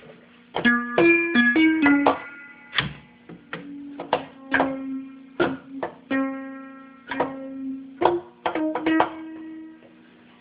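ARP 2600 analog synthesizer played from its keyboard: short, plucky notes with sharp attacks and quick decays, a fast run of notes about a second in, then single notes and another cluster near the end, over a steady low tone. The synth is working but badly out of tune, in need of calibration.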